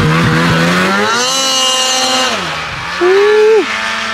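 Snowmobile engine running, revving up about a second in, holding briefly, then dropping back. A short, loud higher-pitched blip follows about three seconds in.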